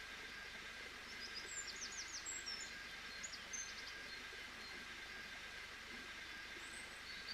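Birds chirping in quick runs of short, high notes from about a second in to nearly four seconds, with one more brief chirp near the end, over a faint steady background hiss.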